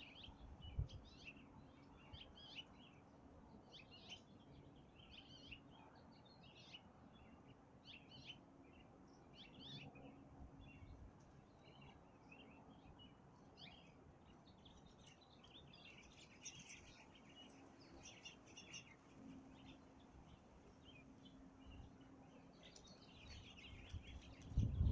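Faint small birds chirping over and over in short high notes, with a low steady hum underneath. A louder bump comes right at the end.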